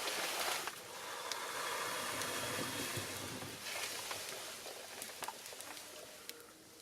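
Small fire of pine cones and cherry branches burning: a steady rushing hiss of flame with scattered sharp crackles and pops, growing quieter near the end.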